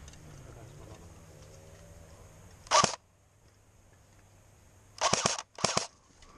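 Short bursts of airsoft gunfire, each a rapid string of sharp cracks: one about halfway through, then two close together near the end.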